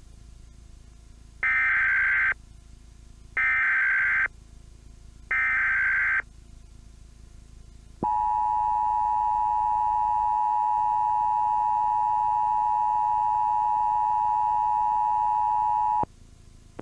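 Emergency Alert System tones opening an Amber Alert (Child Abduction Emergency): three short, harsh digital data bursts of the SAME header, a second or so apart, then a steady two-note attention tone that lasts about eight seconds and cuts off sharply.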